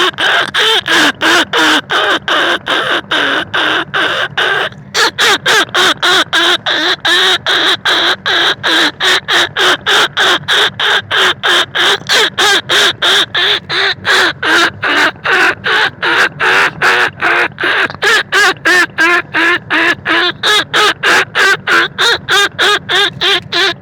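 Rat-calling lure sound for hunting rice-field rats and bandicoot rats: a rapid string of short calls repeating about three a second, with a brief break about five seconds in.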